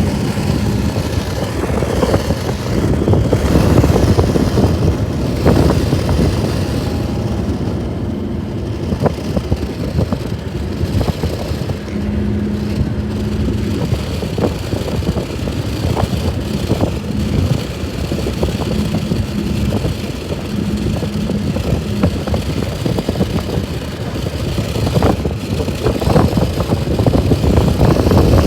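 Steady rumble of a moving vehicle, road and engine noise, with a faint on-and-off hum and scattered short knocks.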